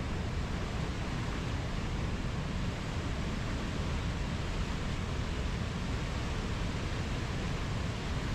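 Ocean surf as a continuous, even rush of water noise, heaviest in the low end, with no single wave breaking out above the rest.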